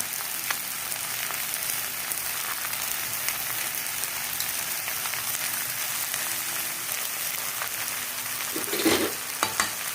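Okra and masala frying in oil in a kadhai, a steady crackling sizzle, with a few sharp clicks and a knock near the end.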